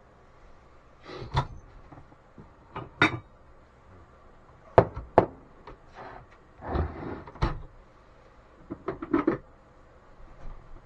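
A string of sharp knocks and clicks in a small room, some close together, with rustling between them, like doors or cupboards being handled.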